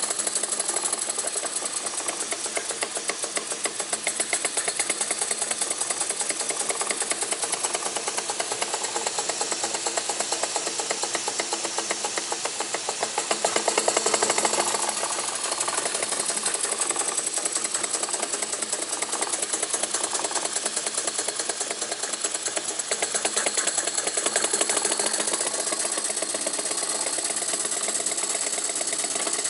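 Jensen #50 model steam engine running steadily on steam from its riveted boiler: a fast, even chuffing beat over a steady hiss.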